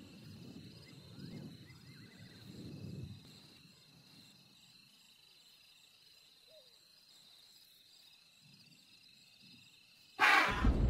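A steady chorus of insects trilling in the bush, with low rustling in the first few seconds and a few faint chirps. About ten seconds in, a sudden loud animal cry cuts in.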